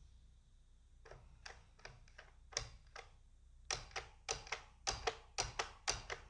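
Stabilized keys (spacebar-type keys) on a mechanical keyboard with Outemu Red linear switches being pressed and released, played back at half speed: a string of separate clacks, sparse at first, then louder and coming in quick pairs from a little past the middle.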